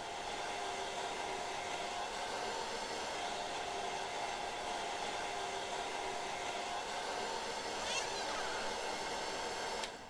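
Hand-held hair dryer running steadily with a whirring hum, switched off with a click near the end.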